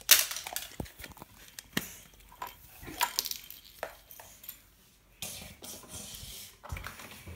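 Small toy pieces clicking and clattering as they are handled and set down, with a short stretch of rustling about five seconds in.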